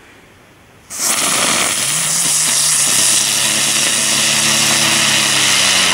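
Category 1 ground spinner firework (Weco 'Dicke Brummer') catching about a second in with a sudden loud hiss, then spinning on the ground with a steady rushing hiss and a low buzzing hum that rises a little in pitch and then holds.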